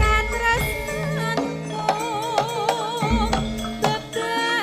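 Javanese gamelan music: a woman sings with a wavering vibrato over ringing bronze metallophones and kendang drum strokes. Two deep strokes sound, one at the start and one about three seconds in.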